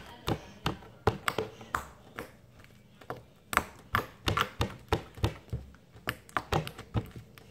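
Homemade white slime being stretched and squeezed against a tabletop by hand, making sharp clicky pops about three times a second, with a short lull a little before halfway.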